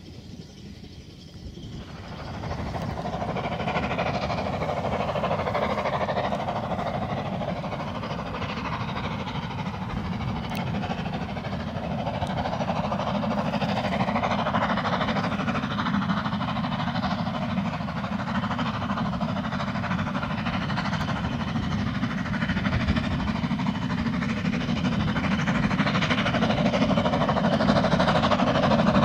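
Narrow-gauge steam train running on the line, coming in strongly about two seconds in and getting louder near the end.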